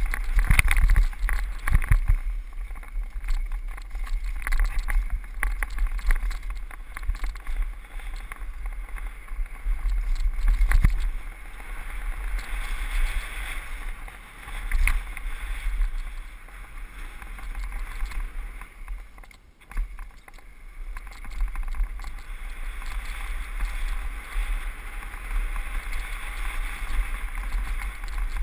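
Mountain bike riding fast down a dry dirt trail, heard through a body-mounted camera: wind rumbling on the microphone over tyre noise on loose dirt, with frequent rattles and knocks as the bike goes over bumps.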